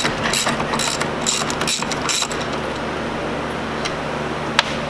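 Hand ratchet wrench clicking in repeated strokes, about two a second, as it backs off a strut top-mount nut. The clicking stops a little over two seconds in, and a single sharp click comes near the end.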